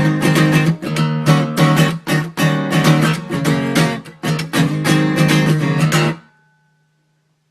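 Background music: an acoustic guitar strumming chords in a steady rhythm. It stops about six seconds in, leaving near silence.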